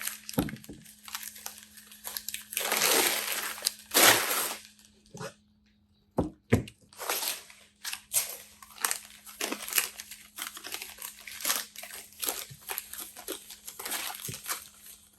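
Packing material crinkling and rustling as a camera is unwrapped by hand, with two longer crumpling passes a few seconds in, then a string of short rustles, clicks and light knocks of handling.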